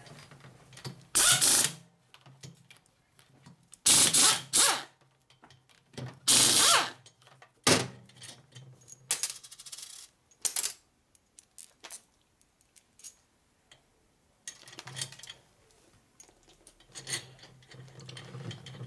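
Air ratchet running bolts into the rocker box of a Harley-Davidson Sportster ironhead cylinder head in about five short bursts over the first eight seconds, followed by scattered light metallic clicks of bolts and washers being handled.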